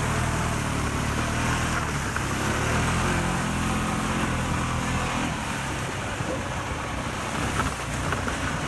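Off-road vehicle's engine running steadily as it drives through waterlogged grass, with the rush of tyres and water spray.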